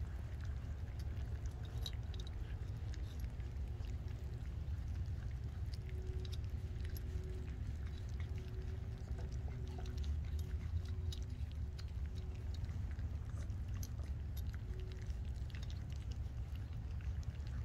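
Four-week-old golden retriever puppies eating dry kibble from a stainless steel bowl: many small scattered crunches and clicks of chewing and kibble against metal, over a steady low rumble.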